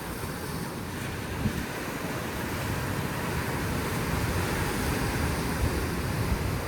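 Sea surf washing steadily onto the shore, slowly building in loudness, with wind rumbling on the microphone.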